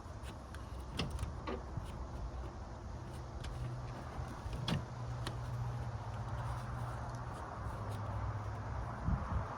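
A few sharp clicks and knocks from hands working plastic parts of a car's interior door panel and handle, over a steady low hum.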